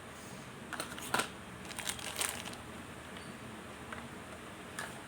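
Packaging crinkling in short handled bursts, about a second and two seconds in, as a pack of mothballs is being unboxed, followed by a couple of light clicks near the end.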